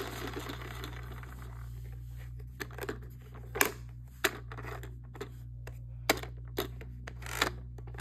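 Plastic toy pieces being handled: scattered short clicks and knocks, about a dozen, over a faint steady low hum.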